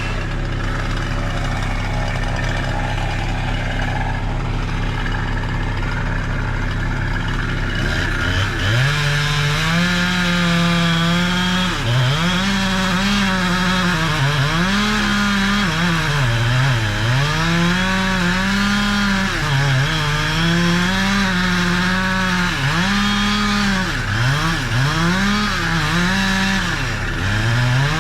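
Chainsaw cutting wood. A steady engine hum gives way, about eight seconds in, to the saw revving high, its pitch dipping and climbing again and again as it cuts.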